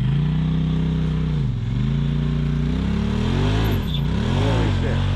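Two-stroke engine of a KTM 300 XC TPI dirt bike under throttle: it holds a steady pitch, drops briefly about a second and a half in, then revs up and down in several quick blips near the end as the throttle is worked.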